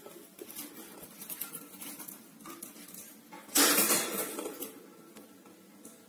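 A cockatiel's claws scratching and clicking on the wooden nest box at its entrance hole, with a louder scuffle lasting about a second just past the middle.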